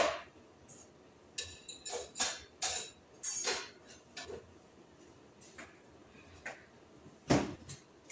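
Metal spoon and dishes clinking and scraping during kitchen food preparation: a string of short, separate clatters, with a cluster in the first few seconds and the loudest near the end.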